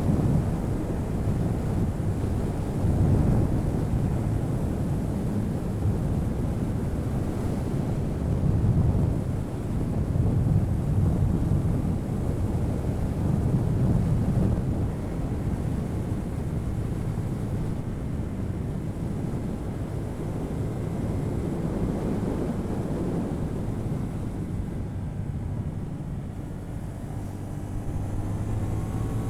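Onboard sound of a CF Moto 450NK with its stock exhaust riding at speed. The engine note is largely drowned by wind rushing over the microphone, with swells in the wind. Near the end the wind eases and the engine's rising note comes through more clearly.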